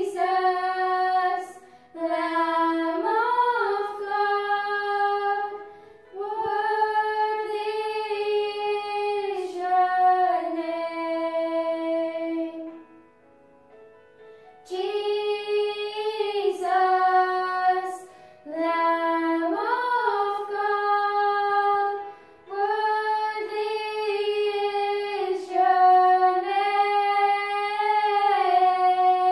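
Two young girls singing a song together without accompaniment, in phrases of a few seconds with short breaths between them and a longer pause about halfway through.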